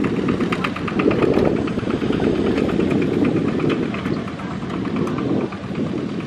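Kubota RT120 walk-behind tractor's single-cylinder diesel engine running steadily with a rapid, regular beat as it pulls a wooden trailer.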